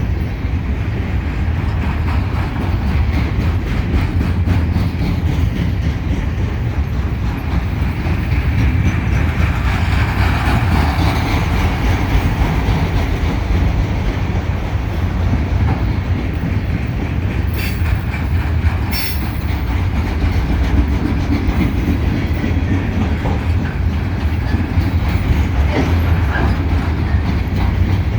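Freight cars of a passing military train rolling by close at hand: a steady heavy rumble of steel wheels on rail with rhythmic clacking over the rail joints, and a couple of brief sharp high sounds a little past halfway.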